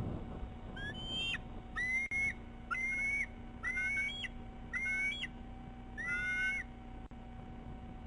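Bald eagle calling: a series of six high, whistled notes, each with a rising start, about one a second.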